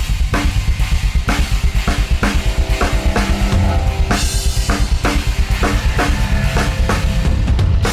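Drum kit played in a fast, busy improvised groove: dense kick drum, snare and cymbal hits that come in suddenly at the start, with a cymbal wash about four seconds in. Sustained pitched notes from another instrument sit underneath.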